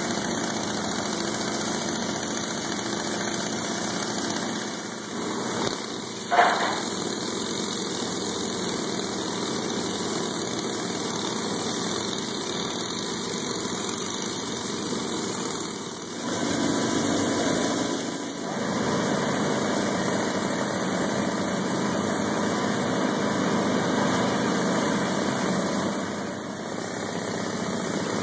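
Pneumatic air hammer tamping dry-cast concrete mix into a mold, running steadily with a few short breaks, and one sharp knock about six seconds in.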